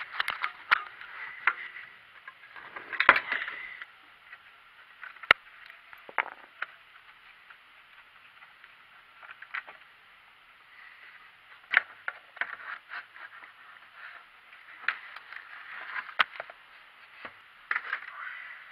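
Irregular clicks, knocks and scrapes of hands and tools at work around the car's engine, mixed with the rubbing of the camera being moved. The sharpest knocks come about 3 and 5 seconds in.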